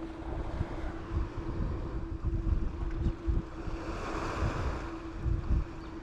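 Wind buffeting the microphone over small waves washing on a beach, with a wave swelling up about four seconds in. A steady low hum sits under it.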